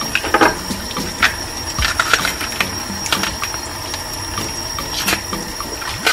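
Tap water running steadily into a stainless steel sink, with scattered snaps and clicks as green banana peel is pried and stripped off by hand.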